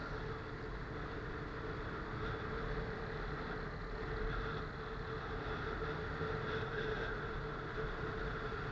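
Benelli TNT 15's 150 cc single-cylinder engine running steadily while riding, with the tyres hissing on the wet road.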